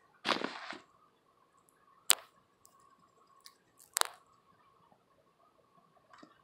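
Guinea pig at a bowl of dry food mix: a short rustle, then two sharp crunchy clicks about two and four seconds in as it bites into the food.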